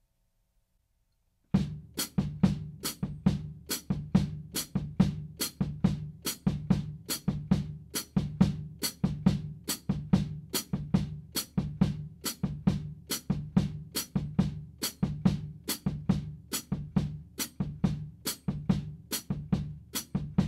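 Drum kit starting about a second and a half in, in a steady even pulse: bass drum on every beat with the hi-hat pedal closing on the upbeats, and relaxed rebound strokes on the snare drum over them.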